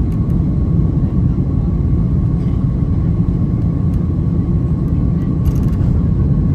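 Boeing 767-300ER's jet engines during take-off, heard inside the passenger cabin: a steady deep rumble with a thin, steady whine above it.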